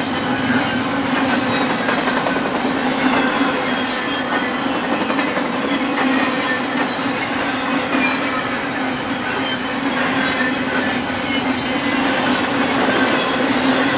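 Double-stack intermodal freight train's well cars rolling past: a steady, loud running noise of steel wheels on the rails with a constant low hum, faint high wheel squeals gliding down now and then, and occasional clicks.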